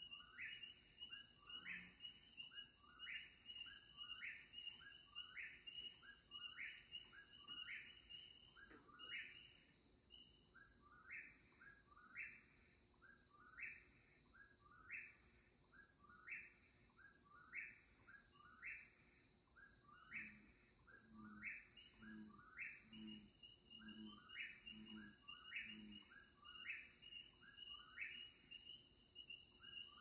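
Faint outdoor chorus of crickets trilling in a steady high drone, with a short chirping call repeated over and over, a little faster than once a second. About two-thirds through, a run of seven low pulsing calls.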